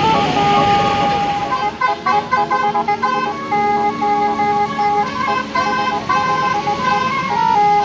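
Tour bus basuri horn, a multi-tone electric melody horn, playing a tune in stepped notes, with a quick run of short repeated notes about two seconds in.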